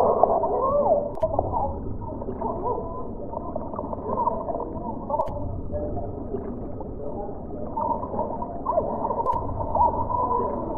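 Heavily distorted cartoon audio: muffled, warbling tones that glide up and down, with nothing above a low, dull ceiling. Three faint clicks fall about four seconds apart.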